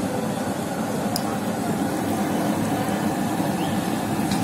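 Steady street noise with a low traffic hum. Under it, aloo tikkis are frying in oil on a large flat iron tawa.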